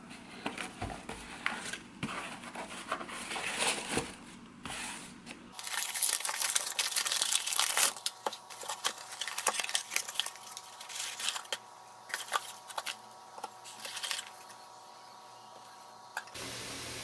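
Paper gift wrapping and a cardboard box being handled, torn and crumpled by hand, with irregular crinkling, rustling and small knocks. Near the end a steady rush of tap water filling a bath starts.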